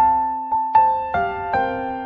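Piano playing a hymn accompaniment in slow chords, a new chord struck about every half second, each ringing and fading.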